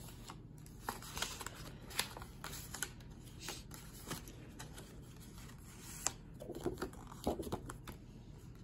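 Faint rustling and sliding of paper and card as folded cards are drawn out of a paper envelope pocket in a hardcover picture book, with scattered light clicks and crinkles.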